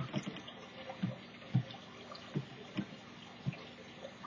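Soft, irregular taps of a cardboard toilet-paper roll being dabbed into wet paint on a plate and pressed onto paper, about seven in all, some coming in quick pairs.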